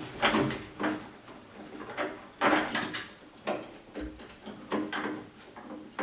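Irregular metal clicks and scrapes, about ten in a row, each with a short ringing: a 7/16 wrench working the door handle's mounting bolts inside the steel door of a 1971 Chevy C20 pickup.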